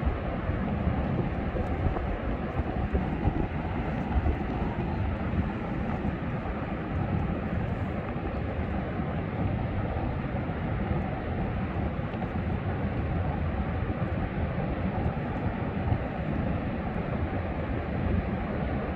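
Steady rushing rumble of wind and ocean surf, deepest in the low end, with no single wave standing out.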